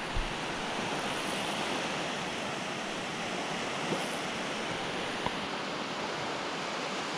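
Ocean surf washing steadily onto a shallow beach, with two faint ticks about four and five seconds in.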